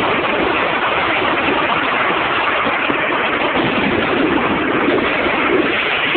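Dense, continuous din of many fireworks and firecrackers going off at once, a steady crackling wash with no single bang standing out.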